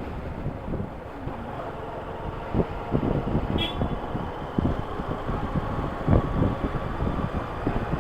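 Motorcycle riding: the engine's low rumble runs under wind rushing over the microphone in uneven gusts. A brief high chirp comes about three and a half seconds in.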